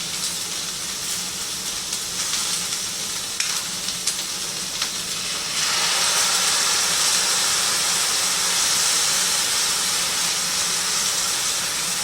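Cream-based sauce sizzling and hissing in a hot pan with cooking chicken, growing louder about halfway through, with a few light clicks.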